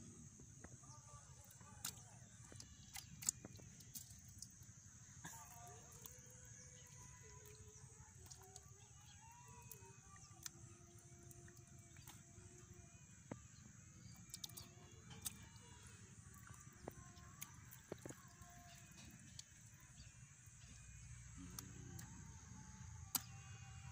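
Faint outdoor background with scattered chirping calls, broken by a few sharp clicks from hands and a metal bowl scooping wet mud. The loudest click comes about three seconds in.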